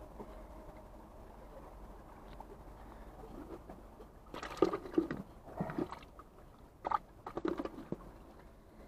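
Sea water sloshing against the shore rocks, with a run of short louder splashes in the second half.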